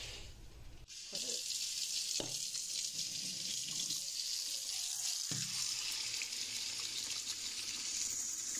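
Kitchen tap running into a plastic bowl in a stainless steel sink: a steady hiss of water that starts about a second in. There are two light knocks, about two and five seconds in.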